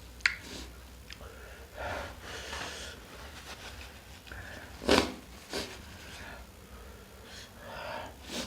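A person sniffing and snorting, breathing hard through the nose from the heat of very spicy chili sambal while eating. There is a loud, sudden snort about five seconds in and a smaller one just after.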